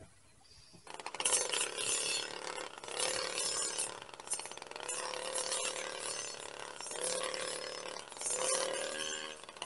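Engine brushcutter running at working speed, its circular-saw-type tipped blade cutting grass with a dense crackle; the engine note swells and eases again and again as the blade is swung. It starts abruptly about a second in.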